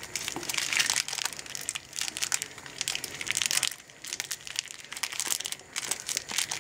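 Candy wrappers crinkling and tearing as they are pulled open by hand: an irregular run of crackles and small snaps.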